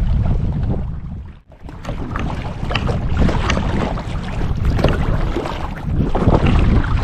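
Wind buffeting the microphone over the splashing and lapping of water as a canoe is paddled, with short sharp splashes scattered through it. The sound drops out briefly about a second and a half in.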